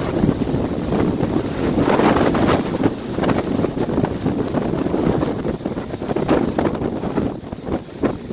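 Strong wind blowing across the microphone, a loud rush that swells and falls in gusts.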